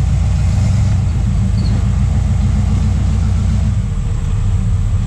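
Off-road Jeep's engine rumbling steadily at low revs while crawling under load over logs.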